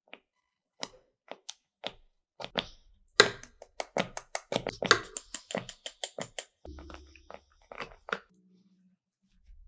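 Kitchen utensils and bowls being handled while a cream is prepared: a quick run of sharp taps and knocks, densest in the middle, with a short low hum about two-thirds of the way through.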